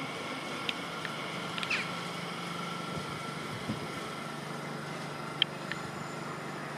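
Elizabeth Line Class 345 electric multiple unit running along the far track: a steady hum with faint whining tones, and a few short sharp clicks.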